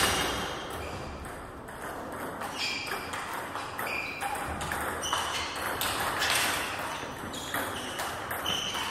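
Table tennis rally: the celluloid-type plastic ball knocking on the rackets and bouncing on the table in quick alternation, each hit giving a short ringing ping.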